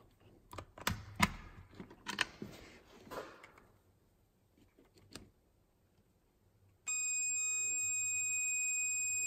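A digital multimeter's continuity beeper sounds a steady high tone for about two and a half seconds near the end, showing continuity between the negative battery terminal and the motor brush. Before it come scattered clicks and rustles of the test probes being handled.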